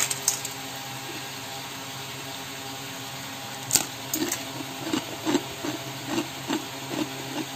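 Crisp fried peanut nippattu crackers snapping and crunching as they are broken by hand: a couple of sharp cracks at first, a loud snap about four seconds in, then a run of smaller crunches. The sharp cracking shows the crackers are fried crisp. A steady low hum runs underneath.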